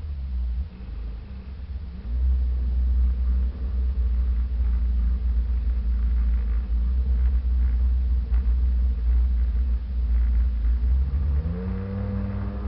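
Sea-Doo personal watercraft under way: a heavy low rumble of wind and water on the microphone over the engine, getting louder about two seconds in. Near the end the engine note rises and then holds steady.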